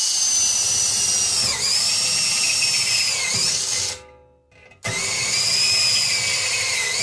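Makita cordless drill driving a step drill bit into thin sheet metal clamped in a vise, starting a pilot hole. The motor runs with a high whine in two bursts, one of about four seconds, then a short pause, then another starting about five seconds in; the pitch dips briefly a few times as the bit bites and loads the motor.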